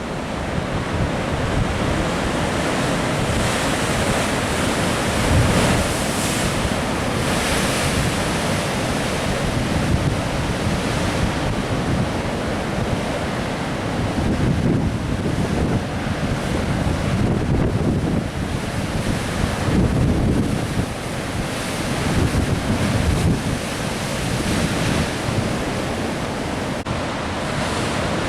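Ocean surf breaking and washing ashore, swelling and easing, with wind buffeting the microphone.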